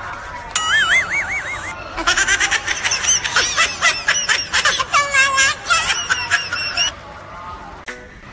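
A short warbling tone, then a high-pitched comic laughter sound effect of rapid 'ha-ha' pulses lasting about five seconds, fading near the end.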